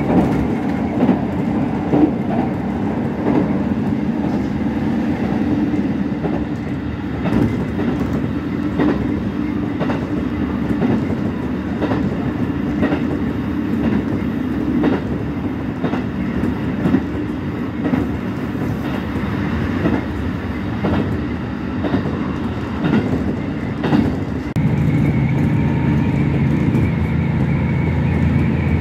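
Diesel railcar running fast, heard from on board, with repeated clicks of the wheels over rail joints. Near the end a steady low engine hum grows louder.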